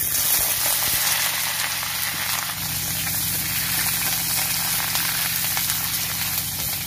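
Cauliflower, potato and malabar spinach frying in hot mustard oil in a kadai, with a loud, steady sizzle.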